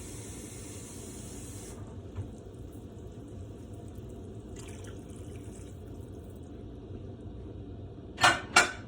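Water running from a kitchen tap, shut off about two seconds in. Near the end come two sharp knocks close together.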